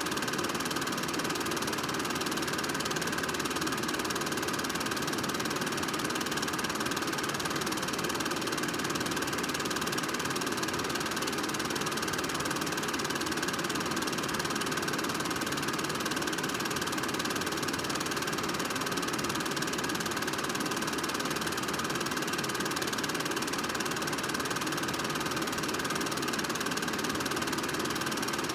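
A film projector running steadily, its motor and film-advance mechanism whirring.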